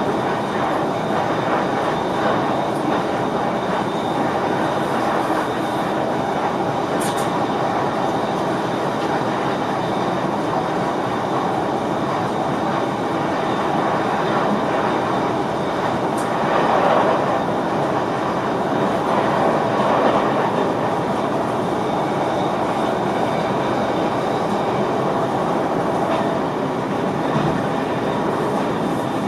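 Running noise of an NS VIRM double-deck electric train heard inside the driver's cab: a steady rumble of wheels on rails, with a few sharp clicks and the noise swelling twice briefly in the middle.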